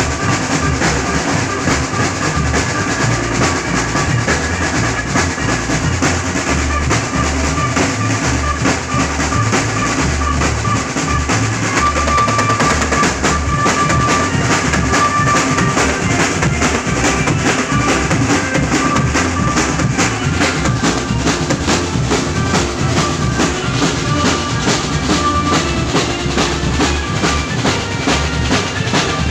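Band music with no singing: an instrumental passage driven by a busy drum kit, with snare and bass drum.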